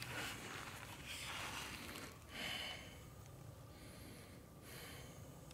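A man breathing close to the microphone: four short, faint, hissy breaths through the nose spread over a few seconds.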